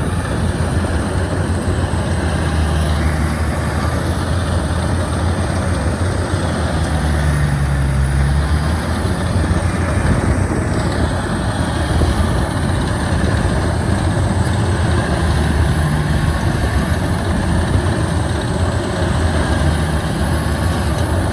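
Combine harvester's diesel engine running steadily and loudly, with a faint high whine that slowly rises and falls above it.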